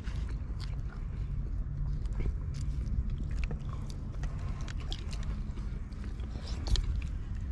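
Someone chewing and crunching food close to the microphone, small clicks scattered throughout over a steady low rumble.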